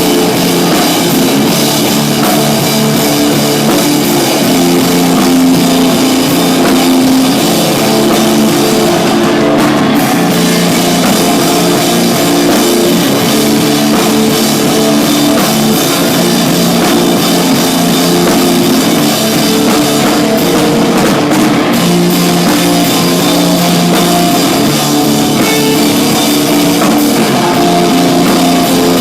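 Rock band playing live, drum kit and guitar going steadily.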